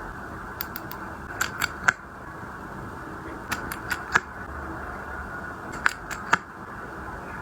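Small hard objects being handled and set down: groups of short, sharp clicks and taps, about a dozen in all, over a steady low hiss.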